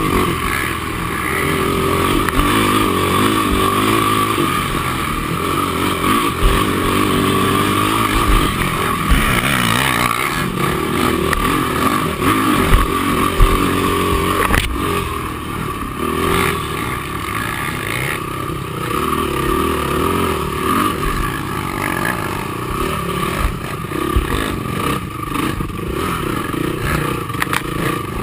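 Honda TRX450R quad's single-cylinder four-stroke engine revving up and down under race throttle, with scattered knocks and rattles from the machine over rough ground, one sharp knock about halfway through.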